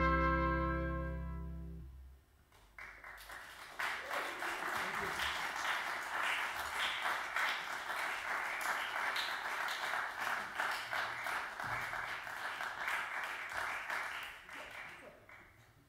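A band's final sustained chord dies away over the first two seconds. After a brief silence an audience breaks into steady applause that fades out near the end.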